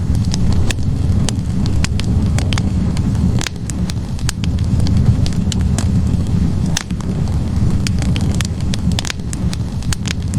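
Wood fire burning in a fireplace: a steady low rumble of flames with frequent irregular crackles and pops from the burning logs.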